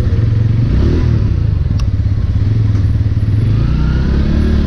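Bajaj Pulsar P150's single-cylinder engine running at idle with a steady throb. There is a single click about two seconds in, and the engine note shifts slightly near the end.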